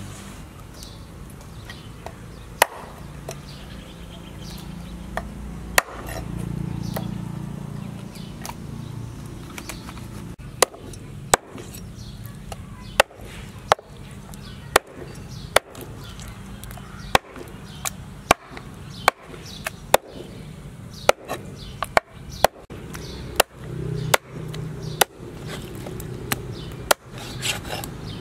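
Cleaver chopping raw duck into pieces on a wooden chopping board: single sharp blows a few seconds apart at first, then steady chops about one to two a second.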